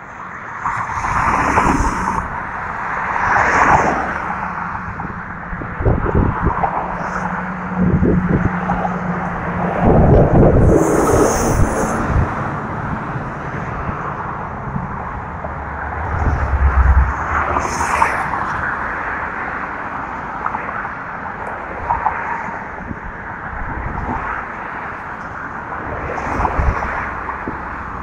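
Road traffic crossing a bridge, vehicles going by in swells every few seconds, with wind buffeting the microphone in low rumbles.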